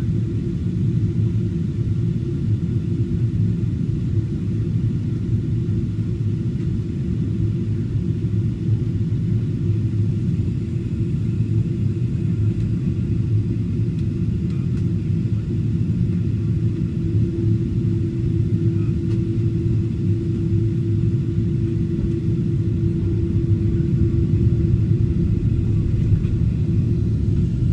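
Steady low rumble of an airliner cabin on its descent, engine and airflow noise heard from a window seat. A steady droning tone comes up more strongly for several seconds past the middle.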